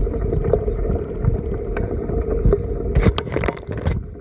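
Bicycle riding over a bumpy dirt track: wind rumbling on the microphone with knocks and rattles from the bumps. A louder, harsher rattle starts about three seconds in and stops near the end.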